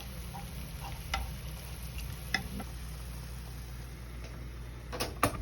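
Spatula stirring beef slices and broccoli in a pan, clinking against the pan a few times, two clinks in quick succession near the end, over a steady low hum.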